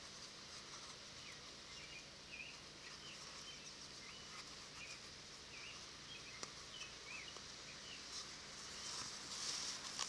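Quiet background with faint, repeated bird chirps, and near the end a soft rustle of a leather lace being drawn through punched holes in a leather bag.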